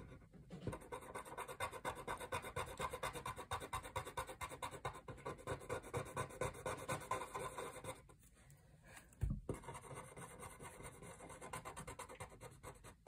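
Felt-tip marker scratching on paper in quick back-and-forth colouring strokes, several a second. The strokes stop for about a second near the middle, a soft knock follows, and then fainter strokes resume.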